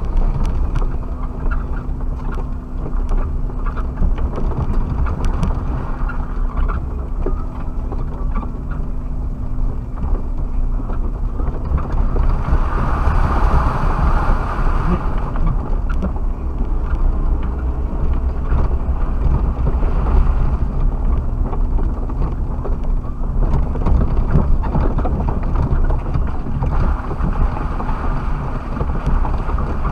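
Suzuki Jimny driving over rough off-road ground: a constant heavy rumble with many small knocks and rattles, and a steady engine hum underneath. A little before halfway it gets louder and rushier for a few seconds.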